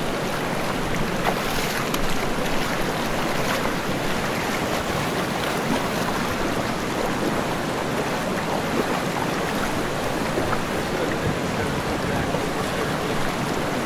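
Steady rush of the fast-flowing Upper Kenai River current, an even hiss of moving water with no breaks.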